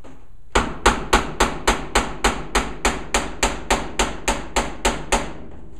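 Quick, even knocking on a Kenmore 80 Series electric dryer's metal cabinet, about seventeen sharp knocks at three to four a second, each with a short ring, getting softer toward the end.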